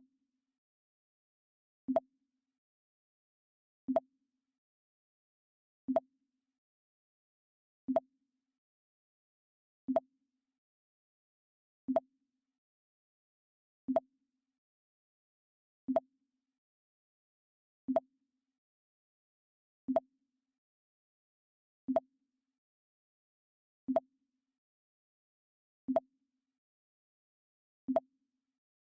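Mac OS X 'Pong' alert sound, a short low blip played over and over, once every two seconds.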